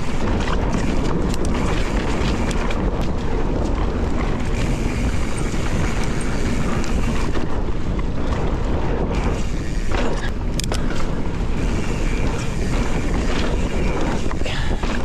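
Wind buffeting the camera microphone over the steady rumble of mountain-bike tyres on a dry dirt trail during a fast descent, with a few sharp rattles from the bike over bumps.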